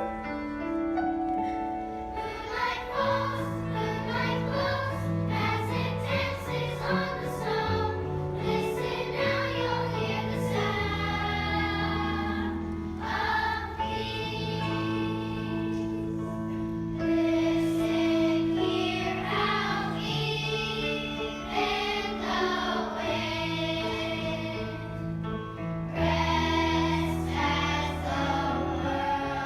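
Children's choir singing over piano accompaniment.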